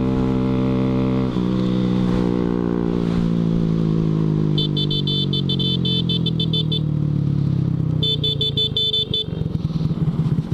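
2014 Honda Grom's 125 cc single-cylinder engine under way; the revs drop with a gear change about a second in, then fall away slowly as the bike slows, ending in a slow, uneven chugging near the end. A high, fast-pulsing horn-like beeping sounds twice in the middle, about two seconds each time.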